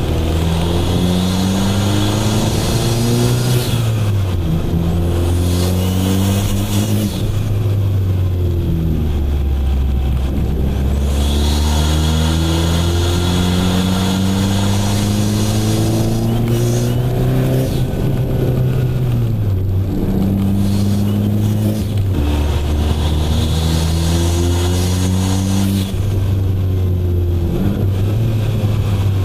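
Fiat Abarth 500's turbocharged four-cylinder engine accelerating hard through the gears: the engine note climbs and drops back at each upshift, several times over. A newly fitted, larger turbocharger whistles as boost builds.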